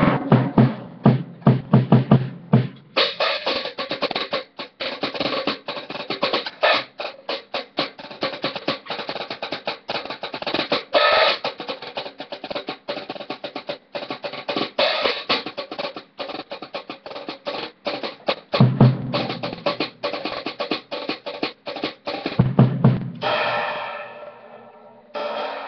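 Gammon Percussion drum kit played as a solo: fast snare and tom strokes and rolls, punctuated by heavy bass drum hits near the start and twice in the second half, picked up by a webcam's built-in microphone.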